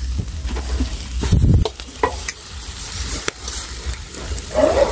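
Marinated pig head sizzling on a wire grill over charcoal, with metal tongs clicking against the rack as the pieces are turned. A dull thump comes about a second and a half in.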